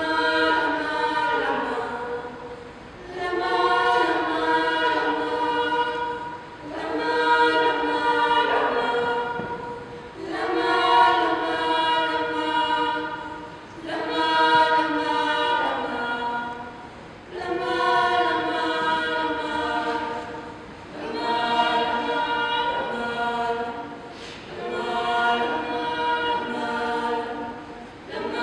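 A small group of women singing together unaccompanied, several voices held on sustained notes in long phrases of about three seconds each, with short dips between phrases.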